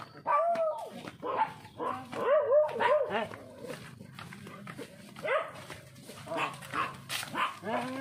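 Several dogs barking and yelping, short barks at differing pitches coming again and again, clustered near the start, around two to three seconds in, and toward the end.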